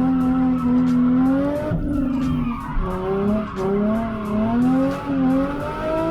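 Nissan 350Z's V6 engine revving up and down repeatedly as the throttle is worked through a drift, with tyres skidding.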